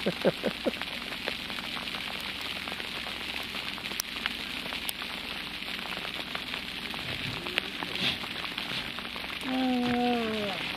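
Hail pattering steadily on the boat, a dense hiss of small ticks. A few short vocal sounds at the start and a drawn-out voice, falling slightly in pitch, near the end.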